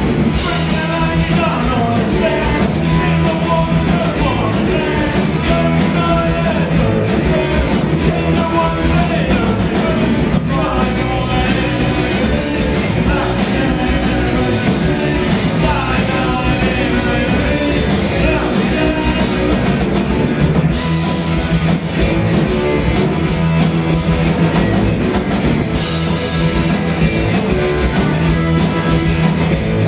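A live rock band playing loudly: guitars and a drum kit keeping a steady beat, with a voice singing over it.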